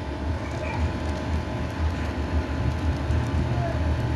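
Steady low rumbling background noise with no speech.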